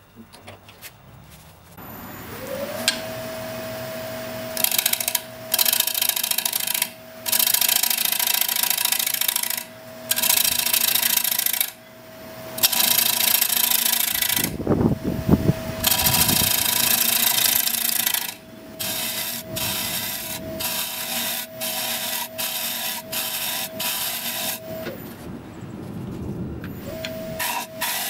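Wood lathe motor spinning up with a rising whine that settles into a steady hum. A gouge then cuts the inside of the spinning wooden bowl in repeated passes, each a loud rasping hiss with short pauses between. Near the end the motor winds down and spins up again.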